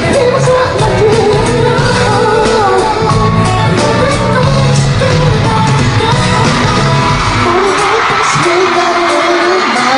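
Live pop concert music with a male singer over a loud band track and a steady beat, recorded from among the audience, with shouts from the crowd.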